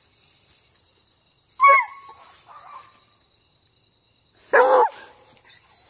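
A hunting dog tied on a rope giving pitched cries. There is a short yelp falling in pitch about two seconds in, and a louder cry near the end, the dog straining to be let loose on the chase.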